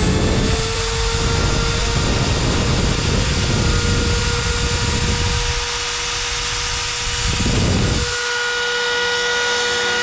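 Dremel rotary tool running at high speed with a steady whine, its rounded bit grinding a notch into the ECU casing. The grinding eases off a little past halfway, comes back briefly near the end, then drops away while the tool keeps spinning.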